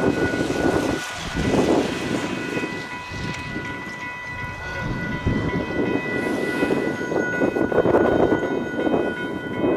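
Train passing at speed: steady wheel-on-rail noise with irregular knocks, and a steady high ringing tone over it.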